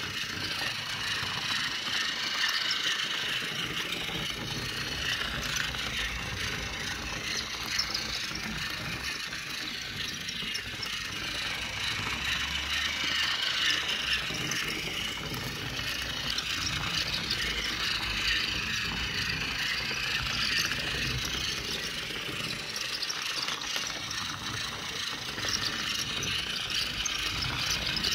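Battery-powered TOMY Trackmaster toy locomotive running on its track: the steady whir and clatter of its small motor and plastic gearbox, swelling and fading gently in level. The gearbox runs without skipping, its noisy cog replaced.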